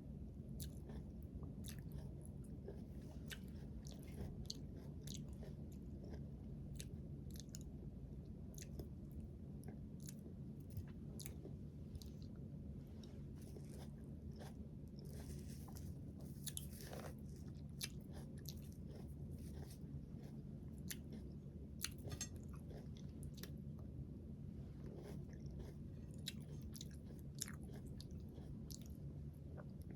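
A person chewing and biting food, with scattered small crunches and clicks throughout, over a steady low hum.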